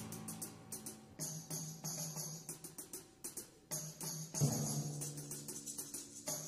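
Percussion ensemble playing a soft passage: quick light taps on drums and small percussion over low ringing drum tones, with a louder stroke about four and a half seconds in.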